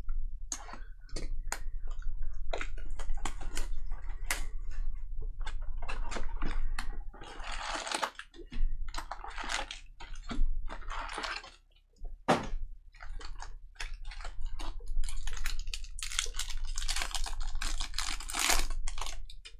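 Baseball card packs being opened and cards handled: many quick clicks and snaps of cards, with stretches of wrapper crinkling lasting about a second each, longest near the end.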